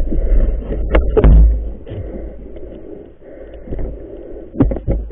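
Handling noise: heavy rumbling bumps against the camera for the first second and a half, then a quieter rough rustle, with a quick cluster of sharp knocks near the end.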